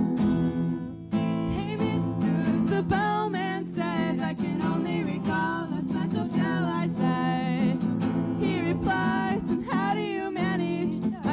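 A woman singing with a strummed acoustic guitar, the voice coming in about a second in over the guitar.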